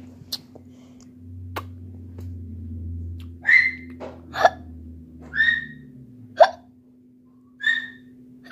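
A young child's short, sharp sounds made with the voice, about six in a row roughly a second apart.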